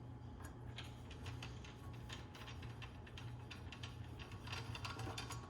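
Small hex wrench turning the screws out of a chop saw's blade guard: light, irregular metal clicks and ticks over a low steady hum.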